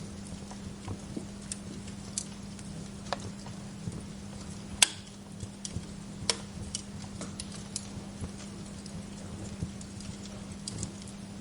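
Wood fire crackling: irregular sharp pops and snaps of burning wood over a steady hiss and low hum. The loudest pop comes about five seconds in.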